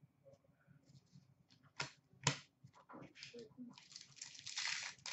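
Trading cards being handled over a glass counter: two sharp taps about two seconds in, then a second or so of rustling and sliding as cards are flipped through.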